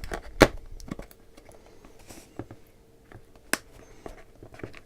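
A cardboard retail box being opened by hand: a few sharp clicks and knocks of the packaging, the loudest about half a second in, with light rustling and scraping between them.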